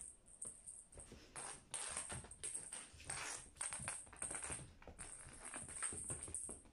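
A cat batting and pouncing at a string-and-feather wand toy on a tatami mat: quick irregular scrabbling, scratching and tapping of paws and toy against the woven straw, coming in flurries. A high hiss comes and goes behind it.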